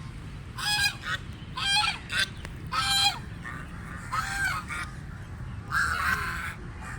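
Ducks quacking loudly, about five calls spaced roughly a second apart, over a low steady background rumble.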